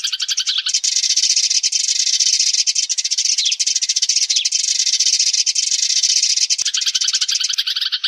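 A flock of sparrows chirping in a dense, rapid chatter: a flock-calling lure recording used to draw sparrows in. About a second in the chatter shifts higher in pitch, and it drops back lower near the end.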